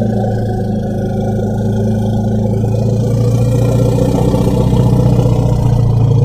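An elephant's long, low rumble, one unbroken call held steady in pitch and growing a little louder toward the end.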